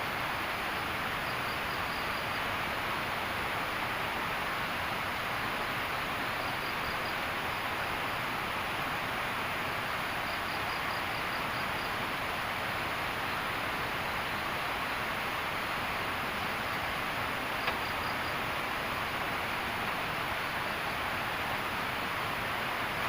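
Steady rushing of a river, with insects giving short high trills now and then over it.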